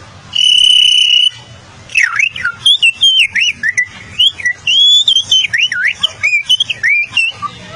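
A child whistling an imitation of canary song. One held whistled note comes first, then after a short pause a long run of quick chirping whistles that swoop up and down in pitch.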